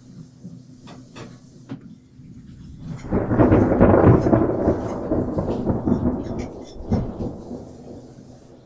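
A thunder rumble in a rainstorm, building suddenly about three seconds in, loudest about a second later, then fading over the next few seconds.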